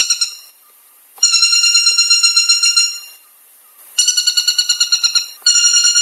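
Woodpecker calling in fast rattling bouts of high, ringing notes, about eight notes a second. Each bout lasts one to two seconds, with short gaps between them.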